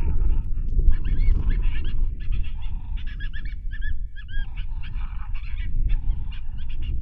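A group of coyotes yipping and howling together: many short, high, wavering calls overlapping, over a steady low rumble.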